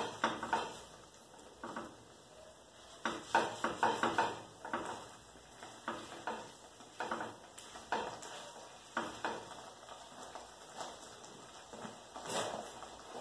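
Cooking sounds at a frying pan: irregular scrapes, taps and knocks of food and utensils being worked in the pan, busiest about three to five seconds in.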